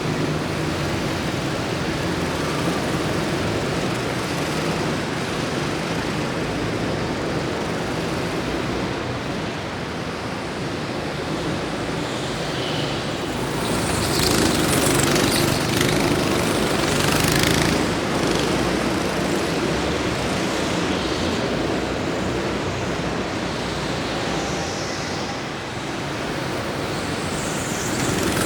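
Racing vehicle engines running as a steady, noisy drone that swells louder for a few seconds about halfway through, as if a vehicle passes close.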